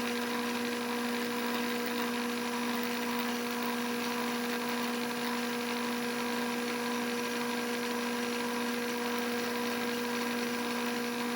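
Bridgeport milling machine running with a steady hum, its spindle motor turning while it machines a steel part.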